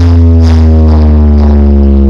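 DJ sound-system speaker stacks playing a bass-heavy sound-test track very loud: a deep steady bass under a tone that slides slowly downward in pitch.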